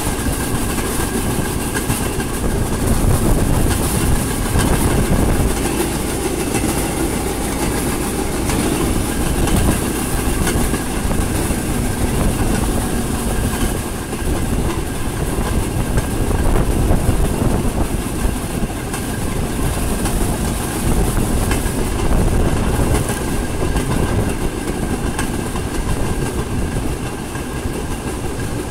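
Narrow-gauge railway vehicle rolling along the track: a steady rumble of wheels on rail with clickety-clack over the rail joints, and a thin steady whine above it.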